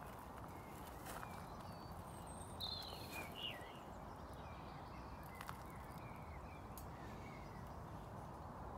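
A bird's short run of falling chirps about three seconds in, the loudest sound, over faint steady background noise with a few light clicks.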